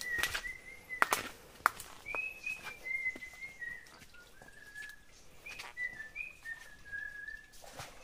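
A person whistling a slow tune, long held notes that step and slide up and down with no break, over footsteps knocking and scraping on stones.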